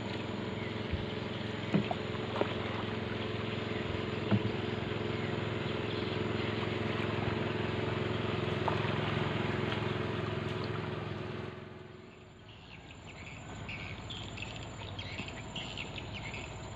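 Canoe being paddled, with water noise, a few sharp knocks of the paddle against the hull, and a steady droning hum underneath. About twelve seconds in, the paddling and hum fall away, leaving insects chirping.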